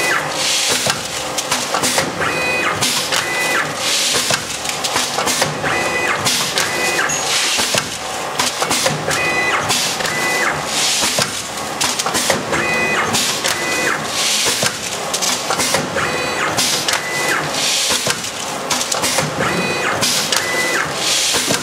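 Four-lane high-speed automatic packing machine running through its cycle: a steady rhythmic mechanical clatter, with short bursts of hiss and a brief high tone coming back every second or two.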